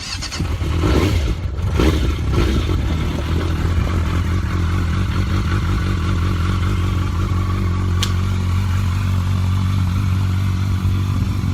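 1997 Yamaha FZR600's inline-four engine running steadily at a low, even speed. There is some clatter in the first couple of seconds and a sharp click about eight seconds in.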